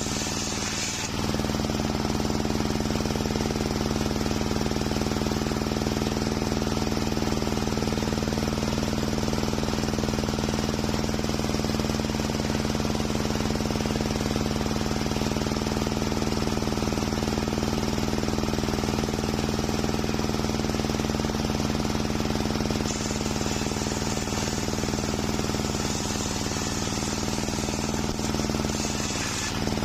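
Large circular saw blade of a homemade sawmill running steadily with a constant hum. It cuts through waru (sea hibiscus) timber at the start and again over the last several seconds, adding a brighter, rasping cutting noise.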